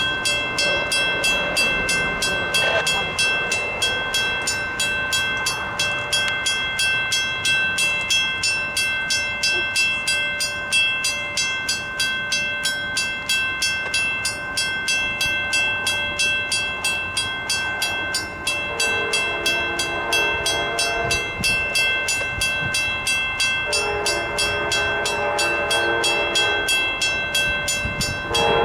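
Grade-crossing warning bell ringing in an even rhythm of about three strokes a second, while an approaching train's horn blows a chord, starting about two-thirds of the way in: one long blast, a second, and a third beginning at the very end.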